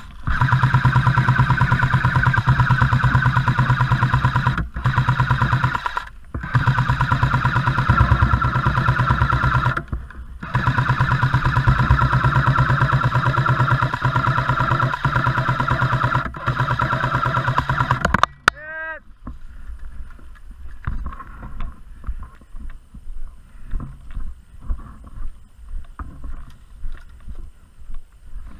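A&K PKM airsoft electric machine gun firing long sustained bursts, a rapid buzzing chatter broken by four brief pauses, cutting off about eighteen seconds in. Quieter scattered knocks and shuffling follow.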